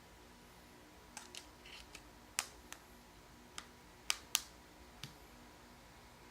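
Small sharp plastic clicks and taps of a smartphone being handled, its battery and back cover being snapped into place: about eight separate clicks, the loudest a close pair about four seconds in.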